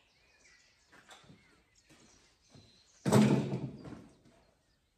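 A single loud clunk about three seconds in, dying away over about a second, after a few faint handling scrapes; birds chirp faintly near the start.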